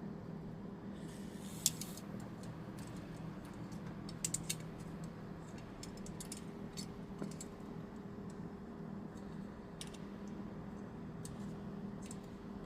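Sardines grilling, with scattered irregular sharp pops and ticks of crackling over a steady low hum.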